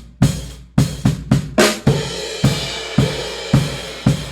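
Full drum kit playing a steady groove of kick and snare hits, with a cymbal wash coming in about a second and a half in. It is heard through a single mono front-of-kit microphone, run through a vintage Sphere Eclipse C console's 823 channel EQ with the low end boosted.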